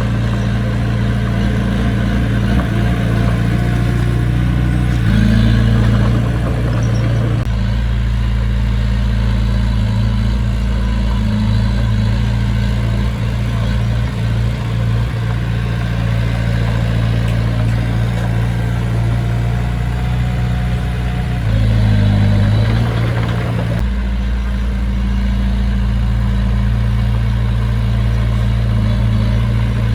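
Diesel engine of heavy construction machinery running steadily, rising briefly twice, about five seconds in and again about twenty-one seconds in.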